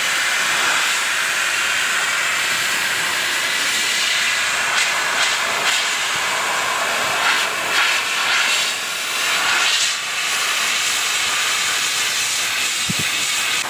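Hose-fed pet blow dryer blasting air through a golden retriever's thick coat: a loud, steady hiss of rushing air that wavers a little in level as the cone nozzle is moved across the fur.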